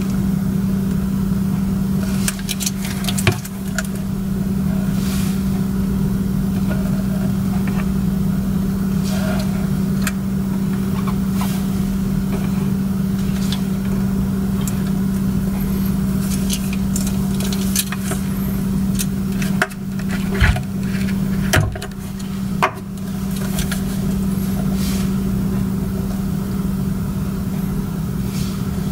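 A steady low hum throughout, with scattered sharp clicks and knocks from a Nikon F4S film SLR body being handled and its dials and controls worked.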